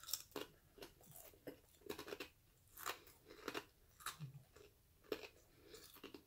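Quiet, irregular crunching and chewing of a hard baked Parmesan cheese crisp (Whisps, barbecue flavour), about two or three crunches a second with short gaps.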